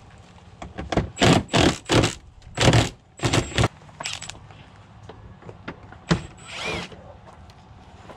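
Cordless impact wrench hammering in a quick series of short trigger bursts as it works on bolts at the front hub and suspension. About seven bursts come close together in the first half, and a couple of shorter ones follow near the end.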